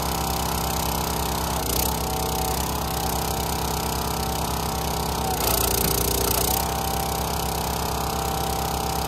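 County Line 25-ton log splitter's gas engine running steadily. It labours briefly about two seconds in, then again for about a second past the middle with a rush of noise, as the hydraulic ram is worked.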